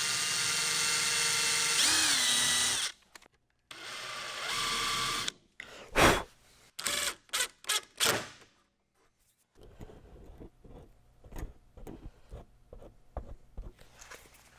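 Power drill running steadily as it bores into the wood, its pitch dipping briefly about two seconds in, then a second short run. Several short trigger bursts follow as a screw is driven into the hole, and after that only soft scattered clicks and taps of handling.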